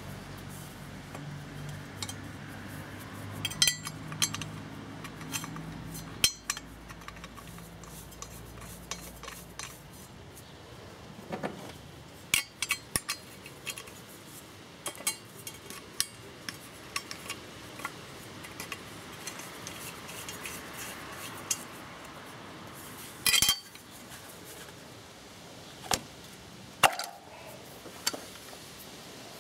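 Scattered metallic clinks and taps as a slotted metal rail is handled on the plastic top of an engine, a few louder clanks among them. A low steady hum sits underneath for about the first third.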